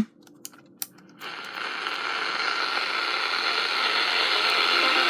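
A few small clicks as the QFX R-9 pocket radio's volume wheel is switched on, then a steady hiss of FM static from its speaker that starts about a second in and slowly grows louder as the volume is turned up.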